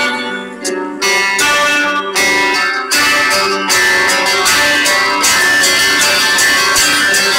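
A small acoustic band playing an instrumental passage of a slow ballad, mainly acoustic guitars strumming and picking chords, with a regular run of plucked note attacks.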